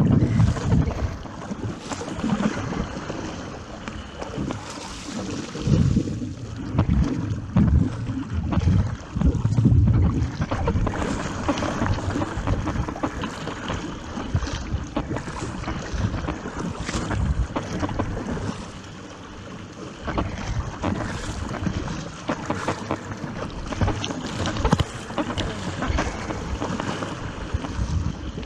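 Wind buffeting the microphone in irregular gusts over water rushing and splashing around a surfski on the open sea.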